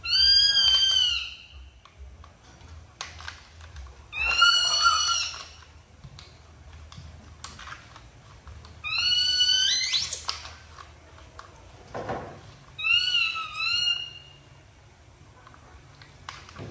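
Baby monkey giving four high-pitched squealing calls, each about a second long and a few seconds apart, the third sweeping sharply upward at its end.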